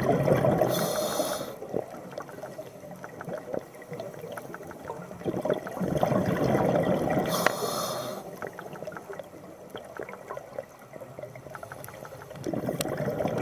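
Scuba diver breathing underwater through a regulator: bubbly gurgling exhalations about every six seconds, each paired with a short hiss from the regulator.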